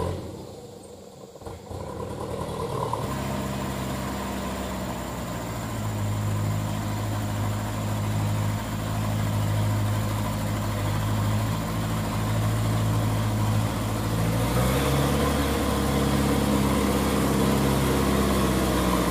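Diesel engine of a Mitsubishi Ragasa truck running steadily under load, driving its PTO winch to reel in the cable and haul the truck forward. The engine gets louder about three seconds in and its note shifts slightly about three-quarters of the way through.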